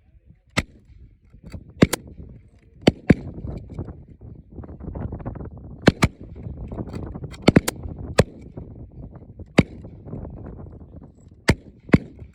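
5.56mm service rifle shots in rapid fire on a range, about a dozen sharp cracks at uneven intervals, some in quick pairs, from the shooter's rifle and others on the firing line. Low rumble of strong wind on the microphone between the shots.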